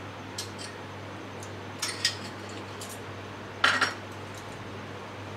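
Spoon clinking and scraping against a cooking pan several times, the loudest scrape about three and a half seconds in.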